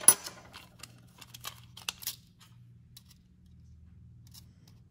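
Light clicks and taps of a tape measure and small metal parts being handled on a workbench, with one sharp click at the very start and scattered softer clicks over the next two seconds. A faint steady low hum runs underneath.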